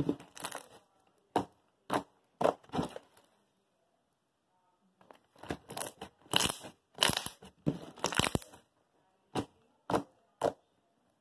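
Crunchy slime being squeezed and pressed, giving irregular bursts of crackling crunches. There is a pause of about two seconds partway through, then a dense run of crunches and three single ones near the end.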